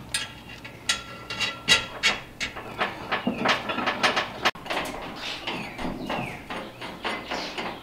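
Bolts and a steel air-spring mounting bracket clinking, knocking and scraping against a truck's frame as they are fitted by hand. The light metallic clinks are irregular, and one rings briefly about a second in.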